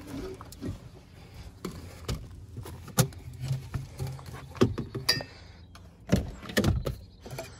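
Scattered clicks, knocks and clinks of objects being handled and set down, with a faint low hum partway through.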